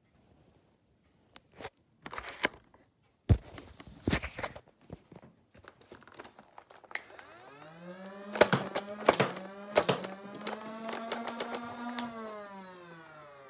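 Clicks and knocks of hard plastic as a clear Nerf blaster is handled, then an electric motor spins up about halfway through, runs steadily with a string of sharp clicks over it, and winds down near the end.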